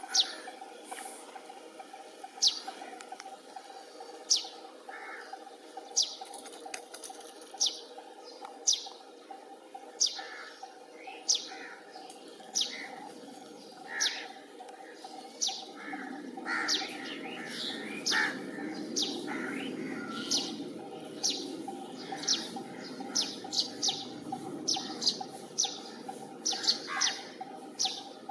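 A small bird chirping: short, sharp, downward-sliding calls repeated every second or two, coming more often in the second half. A low hum comes in about halfway through and runs under the calls.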